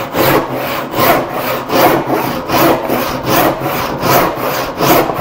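Long, coarse-toothed handsaw crosscutting a board to rough length, in a steady rhythm of back-and-forth strokes. The saw is held fairly flat, at a low angle, while the cut is being started along the line.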